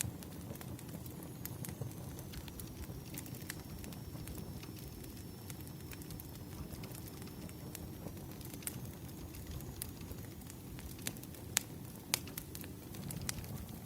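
Wood fire crackling: irregular sharp pops over a low steady rumble, with two louder pops near the end. A faint thin high whistle runs through most of it.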